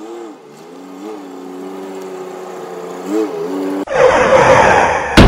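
Pickup truck engine running at low speed as it rolls slowly up, its pitch rising briefly a few times. About four seconds in, it cuts suddenly to a loud rushing noise, with a sharp bang near the end.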